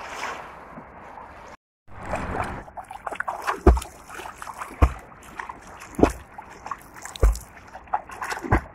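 Sea water sloshing close up, then a person swimming, the strokes splashing in a regular rhythm about once every second and a bit, with heavy low thuds of water close against the microphone.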